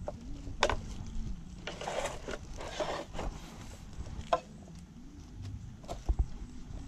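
Kitchen knife slicing bell pepper on a wooden cutting board: a few sharp taps of the blade on the board, with a stretch of rustling and scraping in between.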